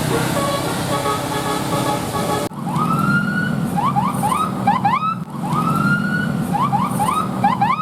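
Bus telolet horn, a multi-tone musical air horn, playing its tune over a low rumble. After an abrupt cut about two and a half seconds in, a phrase of a long rising swoop followed by a run of quick rising swoops plays twice. Before the cut there are held, stepping tones.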